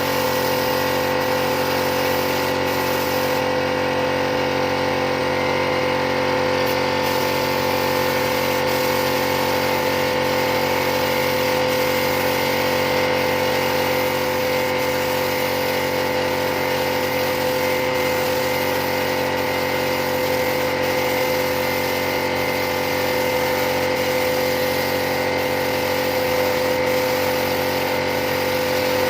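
Steady machine hum made of several constant tones, holding the same pitch and level throughout.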